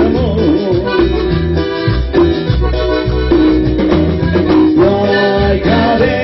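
Cumbia band playing an instrumental passage: a sustained lead melody over a bouncing bass line and a steady dance beat.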